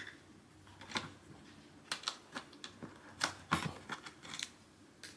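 Scattered light clicks and taps, about a dozen, from hands working scissors and zip ties against the hard plastic shell of a pet carrier.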